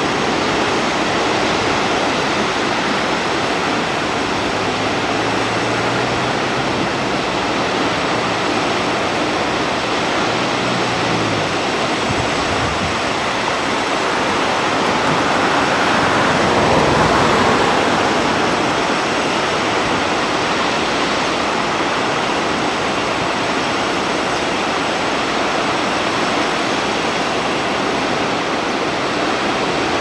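Steady rush of a waterfall pouring down onto a bed of rocks. A low hum runs under it for about the first ten seconds, and the rush swells briefly around the middle.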